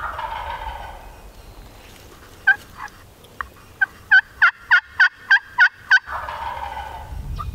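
A wild turkey gobbler gobbles, then a run of about ten loud, evenly spaced turkey yelps follows. The gobbler gobbles again right as the yelping stops, answering the calling.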